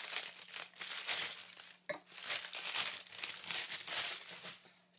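Crumpled white packing wrap crinkling and rustling in irregular bursts as it is pulled out and handled by hand.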